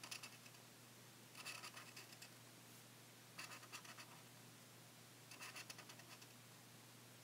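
Brown felt-tip marker scribbling on paper, shading in short faint bursts of quick back-and-forth strokes, about one burst every two seconds, four in all.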